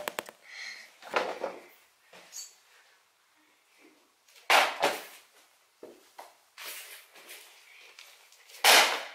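Short bursts of rustling and knocking from things being handled close to the microphone, with a few quick clicks at the start and the loudest burst near the end.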